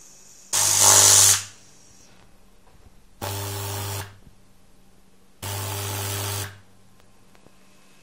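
Microwave oven transformer switched on three times, each time giving a loud electrical buzz with a hiss as high voltage arcs through a pear wired to its output. The first burst, about a second long, is the loudest; the next two are shorter and quieter.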